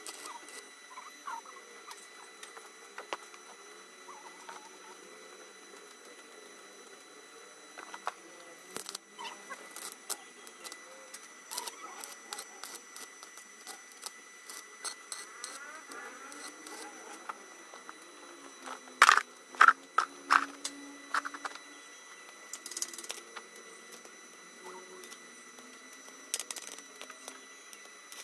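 Stick welding on a steel frame with an inverter welder: a faint crackle and scattered ticks under a steady high whine. About two-thirds of the way in comes a quick run of sharp, loud knocks on the metal.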